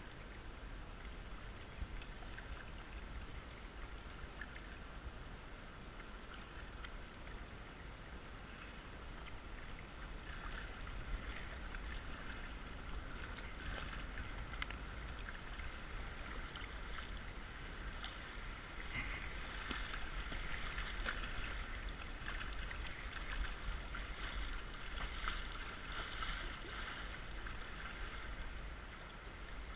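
Swollen, muddy creek water rushing and splashing against a plastic kayak's hull, a steady noise that grows livelier about ten seconds in as the kayak reaches rougher water.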